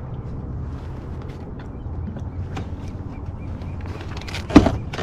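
Handling noise on a fishing kayak while a fish is fought on rod and reel: a steady low rumble with faint scattered clicks, and one loud knock about four and a half seconds in.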